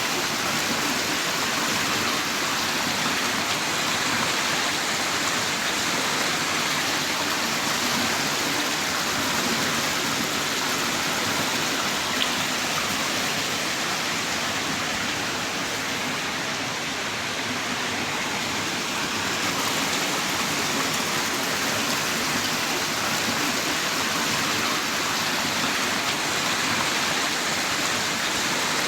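Heavy rain downpour: a steady, dense hiss of rainfall.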